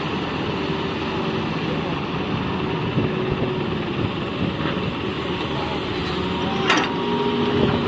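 Heavy diesel engine of an excavator running steadily while loading soil, with a sharp knock near the end.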